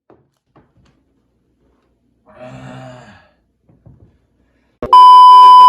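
A person lets out a long sigh about two seconds in. Near the end a loud, steady electronic beep tone cuts in.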